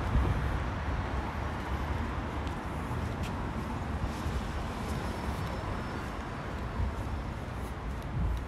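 City street traffic: a steady hiss and low rumble of passing vehicles.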